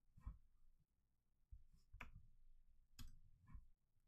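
A handful of faint, separate computer keyboard clicks with near silence between them, as keys are pressed to add '!!' to a line of code.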